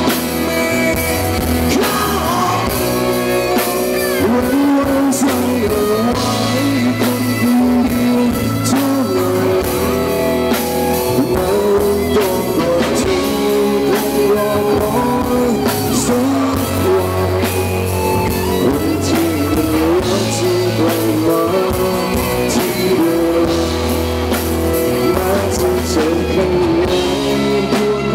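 Live rock band playing: a man singing lead over electric guitars and a drum kit.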